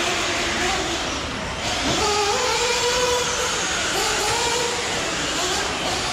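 1/8-scale RC truggies racing on a dirt track, their motors whining and rising and falling in pitch as they throttle through the course, over a steady noisy rush.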